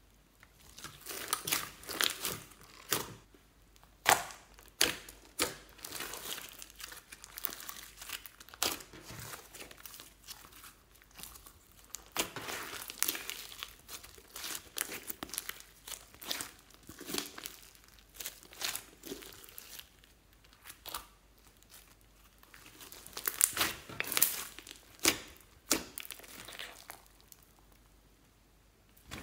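Fluffy slime being squeezed, folded and stretched by hand, giving irregular sticky crackles and pops, with a couple of quieter pauses.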